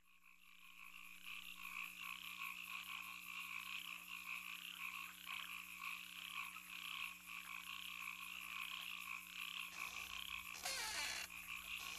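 A quiet chorus of frog-like croaking fades in from silence over a low, steady hum. Near the end come two falling, swooping sounds.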